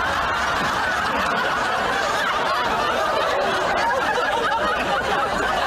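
Audience laughter, many people laughing together at a steady level.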